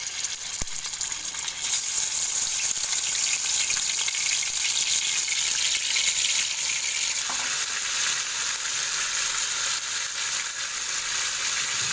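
Marinated chicken pieces sizzling as they are placed one by one into hot oil in a kadhai, the sizzle growing louder about a second and a half in as more pieces go in.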